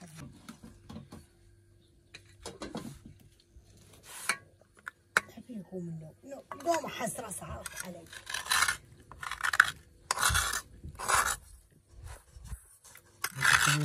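Repeated scraping strokes, about one a second through the second half, with a few sharp clicks earlier and a faint voice near the end.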